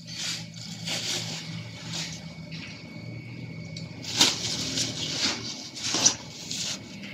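Uneven rustling and scraping of packaging as an aquarium is unpacked, with the louder scrapes about four and six seconds in, over a faint steady low hum.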